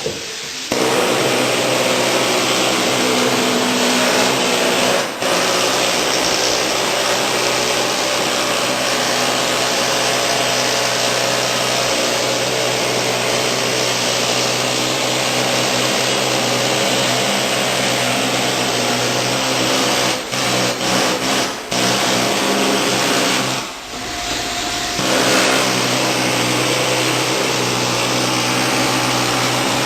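A motor-driven power tool running steadily with a whining hiss, cutting out briefly a few times, once near the start and several times about two-thirds of the way through.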